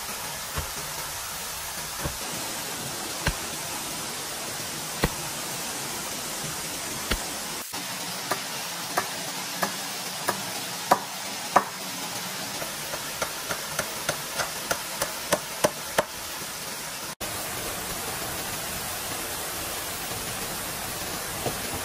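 A series of sharp knocks, one every second or two at first, quickening to about three a second past the middle and then stopping, over a steady hiss.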